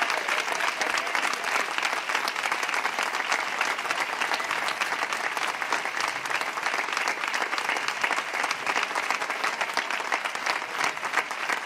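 Crowd applauding steadily, a dense sustained clapping with no break.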